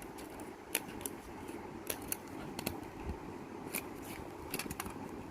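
Scattered sharp little clicks and taps of a small plastic stylus pen being handled and turned over, about ten at uneven intervals over a steady faint background hiss.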